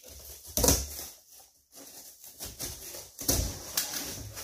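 Large cardboard shipping box being cut and pulled open by hand: scraping and tearing of cardboard, with a few sharp knocks, one a little under a second in and two more near the end.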